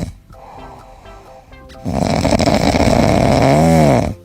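Loud snoring: one rasping breath lasting about two seconds that ends in a brief whine rising and falling in pitch, between quieter pauses with faint background music.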